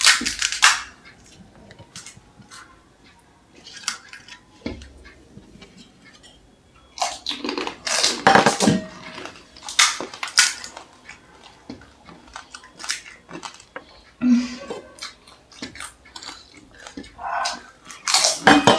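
Crisp pani puri shells cracked open with the fingers and eaten: irregular cracks and crunches with chewing, and now and then a clink of steel bowls and spoons.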